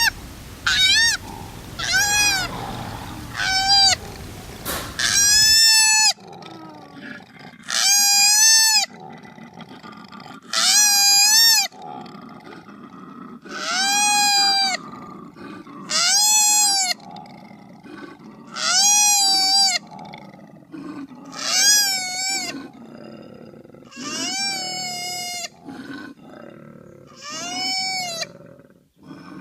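Koala crying: a series of wailing distress calls, each about a second long, rising and then falling in pitch. Several come in quick succession at first over a background hiss that cuts off suddenly, and after that one comes every two to three seconds.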